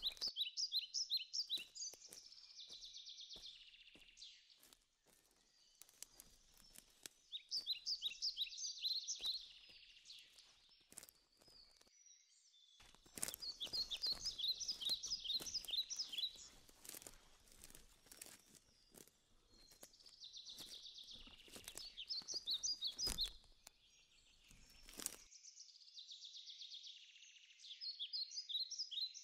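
A songbird sings the same short phrase five times, about once every six seconds: a quick run of high notes ending in a trill. Underneath are footsteps crunching on twigs and forest litter, which stop about 25 seconds in.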